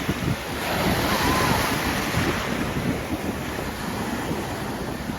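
Ocean surf washing ashore, with strong wind buffeting the microphone in a low, gusty rumble.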